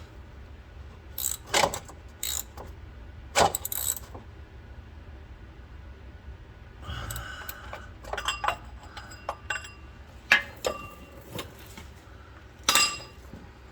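Hand tools and small metal parts clinking and rattling as they are handled, in scattered separate knocks that cluster in the middle, with a louder clank near the end, over a steady low hum.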